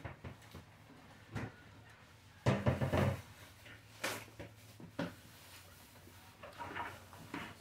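Scattered light knocks and clicks of tableware while eating at a table, a plastic spoon against dishes. A louder cluster of bumps comes about two and a half seconds in, and a sharp click about four seconds in.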